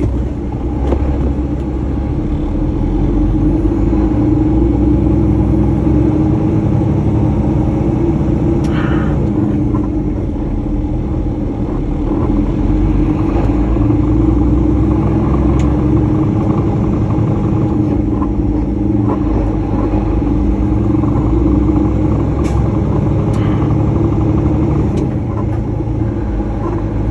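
Truck engine running steadily under way, a constant low rumble with a few light clicks here and there.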